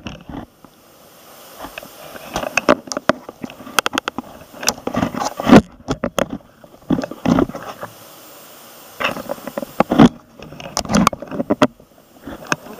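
Handling noise from the camera being moved and set in place on a table: a run of knocks, taps and rubbing, the loudest knocks about five and a half and ten seconds in.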